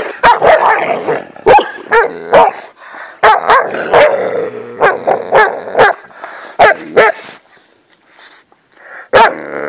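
Young alabai (Central Asian Shepherd dogs) fighting: many short, loud barks and growls in quick succession. They die down about three-quarters through, then one more growl near the end.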